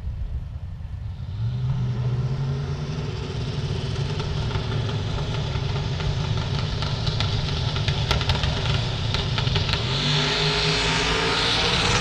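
Drag-race car engines running hard on the strip, growing louder from about a second and a half in, with a rising pitch near the end.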